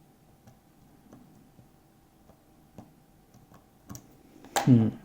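Faint, irregular clicks and ticks of a lock pick working the pin tumblers of a lock. Near the end there is a short, louder vocal sound from the picker.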